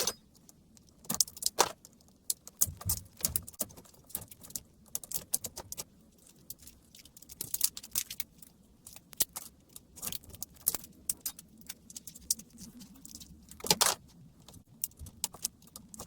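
Irregular clicks, scrapes and rattles of a laptop battery pack being worked apart by hand: plastic casing and 18650 cells knocking together as the glue holding them is cut and scraped away with an x-acto knife.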